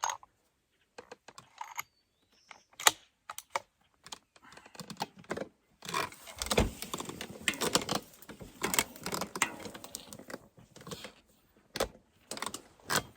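Irregular clicks, taps and rattles from handling a bolt-action rifle and gear at a shooting bench, the sharpest click about three seconds in, with a busier run of clatter and rustling in the middle and a dull thump among it.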